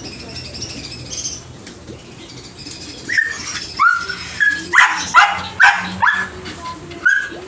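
Puppy barking in a run of about eight short, high-pitched yaps, starting about three seconds in, over faint chirping of caged birds.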